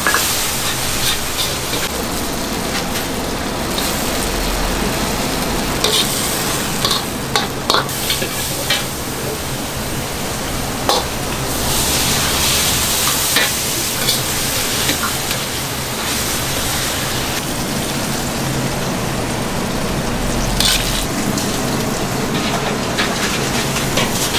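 Stir-frying in a steel wok over a gas flame: food sizzles steadily while a metal ladle scrapes and stirs in the pan, with scattered sharp clacks of the ladle striking the wok.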